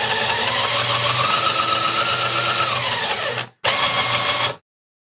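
The mixer's liquor pump, a custom 3D-printed pump driven by an IKEA FIXA drill motor, running on its own in shots mode to fill a shot glass. Its motor whine rises in pitch about a second in and holds, as the lever's flow control speeds the pump up. It falls away after about three seconds, stops for a moment, then runs again for about a second before cutting off.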